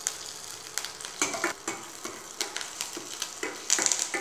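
Mustard seeds, fenugreek, dried red chillies and freshly added curry leaves sizzling in hot oil in a stainless-steel kadai, with many sharp crackling pops: a South Indian tempering (kadugu varakkal). A metal spoon stirs and scrapes against the pan a few times.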